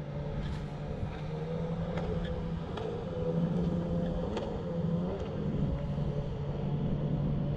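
A boat's engine running steadily at low speed: a low, even hum that wavers slightly in pitch, with a few faint ticks over it.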